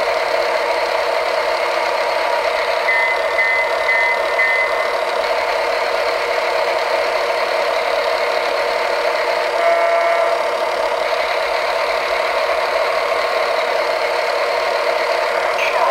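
Built-in sound effects of a battery-powered Lionel Ready-to-Play John Deere toy diesel locomotive, playing as it runs: a steady recorded diesel engine rumble. There is a brief run of repeating high beeps about three seconds in and a short burst of several tones near ten seconds, all part of the set's 40-second repeating sound loop.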